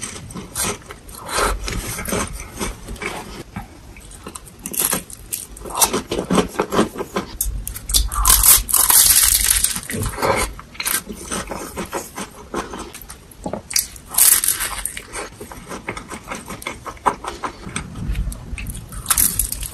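Someone biting into and chewing a crisp, flaky fried pastry: the crust crackles and crunches as flakes shatter, with chewing in between. The loudest crunching comes about eight to ten seconds in and again around fourteen seconds.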